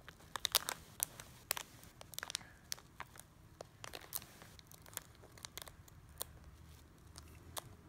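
Plastic fruit snack packet crinkling and crackling as a child's fingers pick at its corner, trying to tear it open. The crackles come thick in the first couple of seconds, then thin out to scattered clicks.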